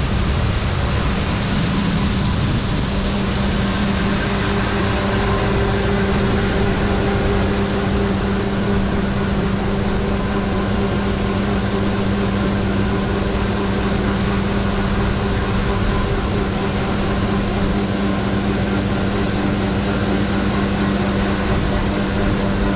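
Large John Deere harvest machinery running steadily under load: a loud, continuous drone with an unchanging low hum.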